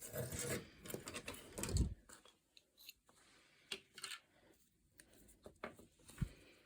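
Small plastic model-kit parts being handled and worked on a work surface: about two seconds of scraping and rustling, then scattered light clicks and taps.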